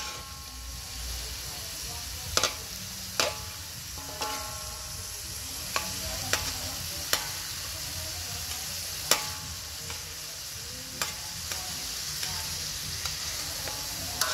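Duck sizzling in a large metal wok while a metal spatula stirs it, scraping and clanking against the pan at irregular moments, about a dozen times. A few of the harder strikes leave the wok briefly ringing.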